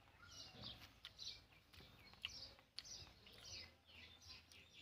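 Faint birdsong: many short, high chirps and trills, several a second, with a couple of faint clicks.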